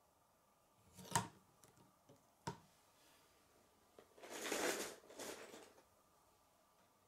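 K'nex plastic pieces being handled: two sharp clicks about a second apart, then a rustling that lasts more than a second.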